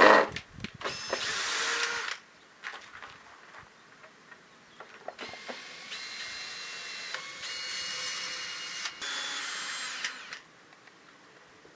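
A power tool's small electric motor running in two goes: a short burst about a second in, then a longer run from about five to ten seconds in, its whine stepping up and down in pitch a few times. A sharp knock right at the start.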